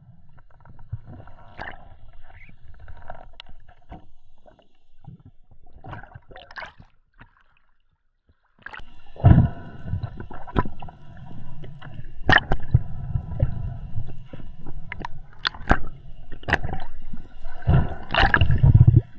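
Water sloshing and gurgling against the camera, with scattered sharp knocks. It falls nearly silent for a moment about eight seconds in, then comes back louder with more knocks.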